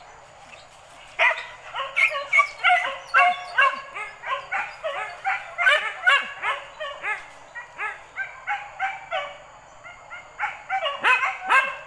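Hunting dogs yelping and barking in rapid high-pitched volleys, about three calls a second, straining toward a piece of meat hung out of reach above them. The calls ease briefly about ten seconds in, then pick up again.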